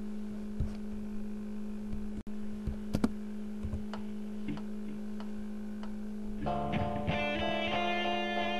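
Guitar music: sparse plucked notes over a steady held note, filling out into a fuller, busier passage about six and a half seconds in.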